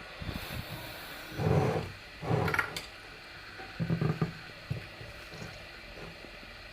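Three short bursts of rubbing and knocking, with a few sharp clicks, from lemons being packed with salt into a jar.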